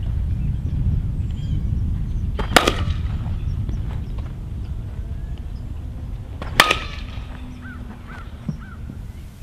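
Softball bat hitting pitched balls twice, about four seconds apart, each a sharp ping with a short ring. Wind rumbles on the microphone underneath.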